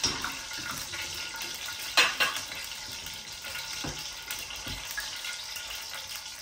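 Mustard seeds, curry leaves and other whole spices sizzling and crackling in hot oil in an aluminium pot, with a sharp clatter about two seconds in.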